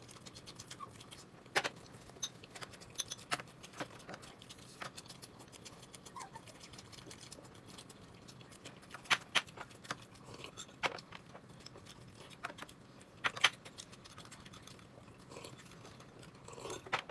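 Scattered light clicks and taps of tableware while someone eats at a table: a dozen or so short sharp ticks at uneven intervals, with louder pairs about nine and thirteen seconds in.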